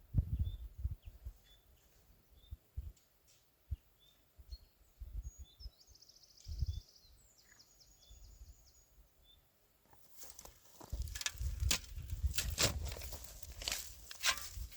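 A small bird chirping over and over, with a short trill about halfway through. About two-thirds of the way in, close crunching and rustling starts and runs to the end, like steps or handling on dry ground.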